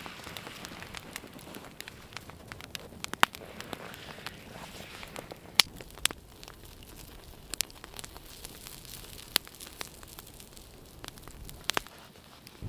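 Wood fire crackling: a few sharp, scattered pops over a low steady hiss.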